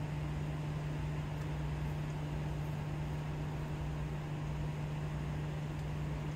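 A steady mechanical hum: one constant low tone with a throbbing rumble beneath it and an even hiss over the top, unchanging throughout.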